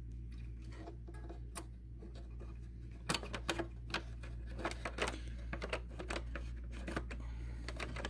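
Small, sharp, irregular clicks and taps of plastic and metal model-train parts being handled, as the spring is hooked back on and the truck and coupler are fitted to the O-gauge boxcar, starting about three seconds in, over a steady low hum.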